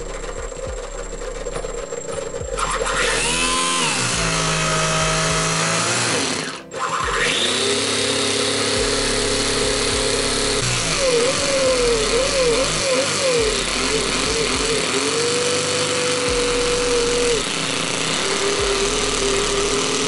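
Electric starter motor spinning over a Toyan FS-S100G miniature four-stroke glow engine to start it. A whine rises in pitch a few seconds in, cuts out briefly, rises again and holds, then wavers in pitch for a couple of seconds before steadying again. The starter's speed controller is faulty, so the starter struggles to turn the engine over.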